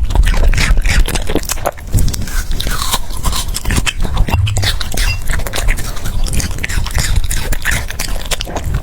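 French bulldog eating close to the microphone: wet chewing and smacking, a dense run of quick clicks, with some scraping.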